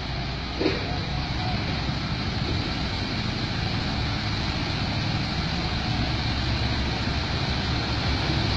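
Heavy truck's engine running as the truck crawls slowly along a rutted dirt road, a steady low rumble that grows gradually louder as it approaches. A short knock about half a second in.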